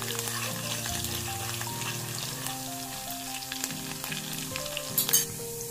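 Chopped garlic frying in hot oil for a tadka, a steady sizzle with fine crackles and a louder pop about five seconds in, as the garlic cooks toward golden brown. A soft melody plays underneath.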